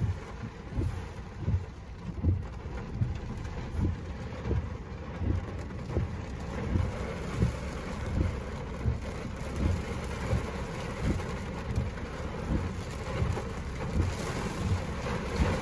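Steady rain falling during a thunderstorm, with low thumps repeating evenly about every three-quarters of a second. The rain grows louder near the end.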